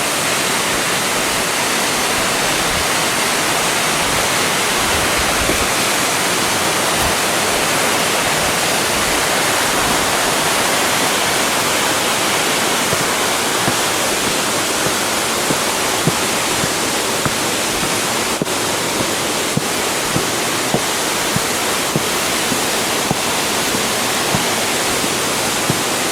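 Steady rushing hiss of a waterfall, the water of Ichijō Falls pouring down, with faint light ticks about once a second in the second half.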